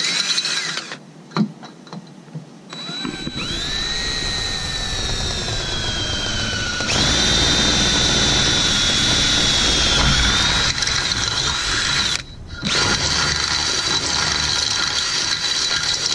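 Cordless drill boring through aluminium tubing with a twist bit. The motor whine cuts out about a second in and starts again, then sags in pitch as the bit bites into the metal. From halfway it runs higher and steadier, with one short stop about three-quarters of the way through.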